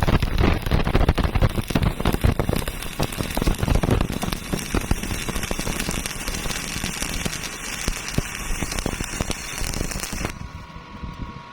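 Electric arc welding on metal plate: the arc crackles and spits steadily, then cuts off abruptly about ten seconds in.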